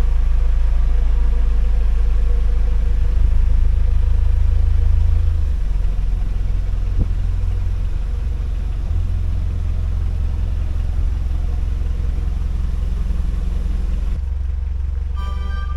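Narrowboat engine running steadily with a low hum, its note dropping to a lower, quieter run about five seconds in. A single click comes a little later.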